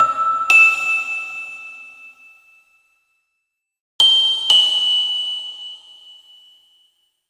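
Bell-like chime notes struck in two pairs about four seconds apart, the notes of each pair half a second apart, each note ringing out and fading over a couple of seconds.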